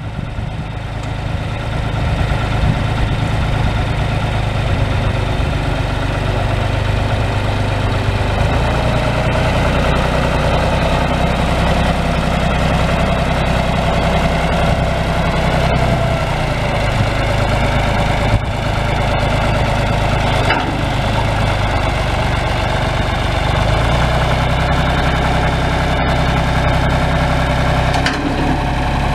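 John Deere 2240 tractor's three-cylinder diesel engine running steadily as the tractor is driven. Its engine speed shifts about eight seconds in and again near the end, and a higher whine rides over the engine for several seconds in the middle.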